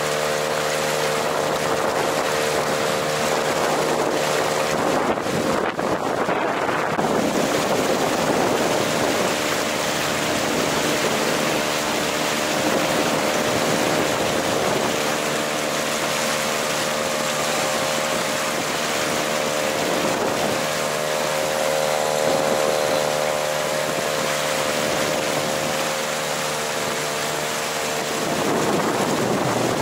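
Small two-stroke Mercury 3.3 outboard motor running at a steady speed, pushing an inflatable boat along during its break-in, with wind on the microphone and water rushing past the hull.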